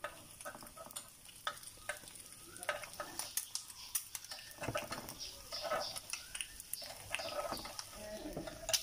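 A metal spoon scrapes and taps in the round cups of an electric egg pan as quail eggs are turned and lifted out, making many small irregular clicks. Under it is a faint steady sizzle of the eggs frying.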